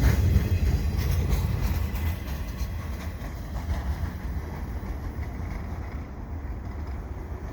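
Freight train of empty flat cars rolling away on the rails, its low rumble fading steadily as the end of the train recedes.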